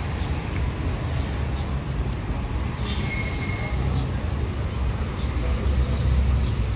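Road traffic on a city avenue: a steady low rumble of car engines and tyres that grows louder near the end, with a brief high thin tone about three seconds in.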